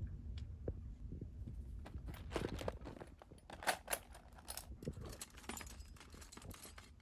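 Irregular footsteps with light clicks, knocks and rustling of tools and small items being handled, busiest in the middle.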